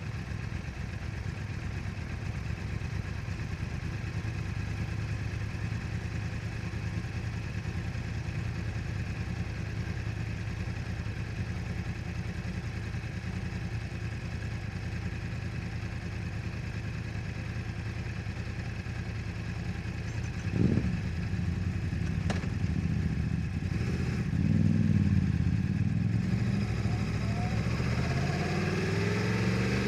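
2015 Yamaha R1's crossplane inline-four running through a full Akrapovič exhaust, idling steadily, with a single short throttle blip about two-thirds of the way in. Near the end it gets louder and revs, the pitch rising and falling.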